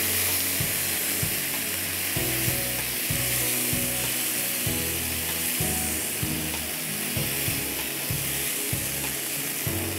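Boiled cauliflower, carrots and peas sizzling in oil in a frying pan: a steady frying hiss, with light scrapes and taps of a silicone spatula against the pan as the vegetables are stirred.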